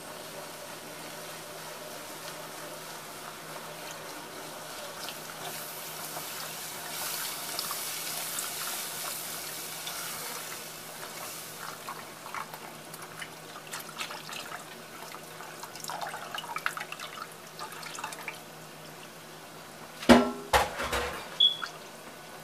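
Chicken broth poured into a hot butter-and-flour roux in a saucepan and stirred in. The liquid rushes and hisses, and the utensil clicks and scrapes against the pan. A few loud knocks come near the end.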